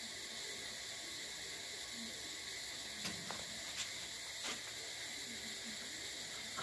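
Four light clicks and knocks of metal tools and brass nozzle parts being handled, spread over about a second and a half, over a steady background hiss.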